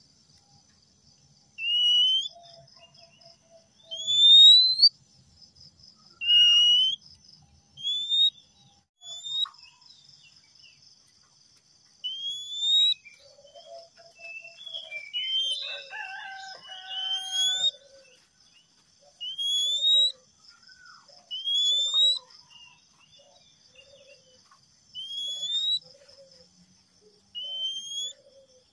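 Male Oriental magpie-robin whistling a short rising note over and over, about one every two seconds, with a brief jumble of mixed notes midway.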